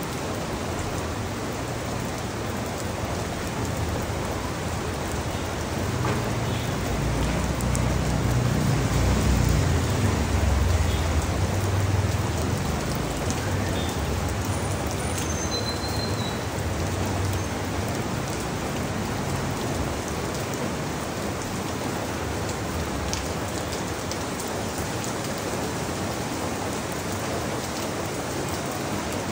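Steady rain falling on the leaves of a mango tree, a continuous hiss of drops. A low rumble swells and fades from about six to thirteen seconds in.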